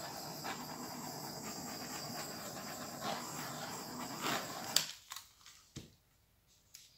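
Handheld butane torch flame hissing steadily, then the hiss stops with a sharp click about five seconds in.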